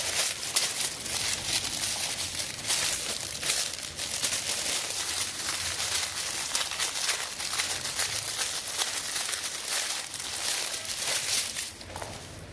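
Clear OPP plastic bag crinkling and rustling as hands handle it and slide a sisal cat-scratching mat out of it. The crinkling stops shortly before the end.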